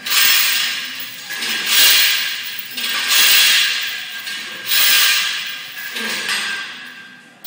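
Steel lifting chains hung from a loaded barbell rattling and clinking against the floor as they rise and settle with each fast bench press rep. About five jangling swells come roughly a second and a half apart, each starting sharply and fading.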